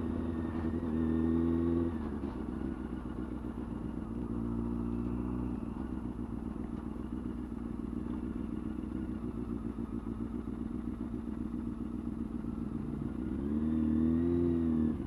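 Honda CBR600F4i inline-four sport-bike engine heard from the rider's mic, running at low revs through the middle. About thirteen seconds in, its revs climb and then fall back.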